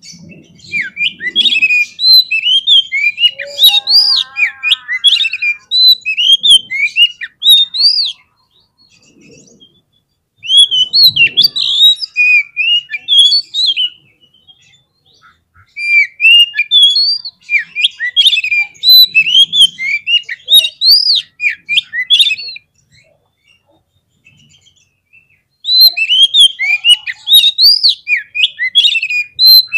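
Oriental magpie-robin (kacer) singing a fast, varied song of chirps, whistles and trills, in four long bouts with short pauses between them.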